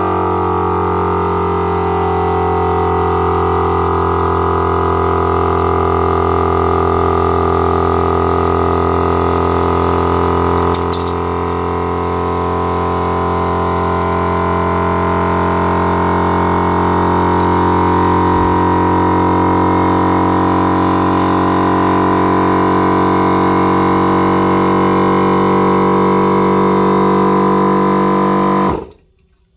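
Battery-powered portable air compressor running steadily with a loud hum as it fills its air tank, then cutting out abruptly near the end once the tank is full.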